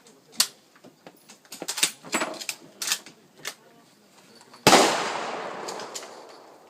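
A single shot from a Bushmaster AR-15 rifle about halfway through, sharp and loud, with a long echo fading away over about two seconds. Before it, a few scattered clicks and knocks.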